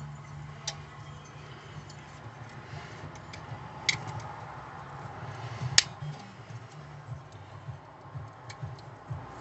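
A few sharp metallic clicks and clinks as Lada Granta rear drum brake shoes, a coil spring and pliers are handled and fitted, the loudest about six seconds in. A low steady hum runs underneath.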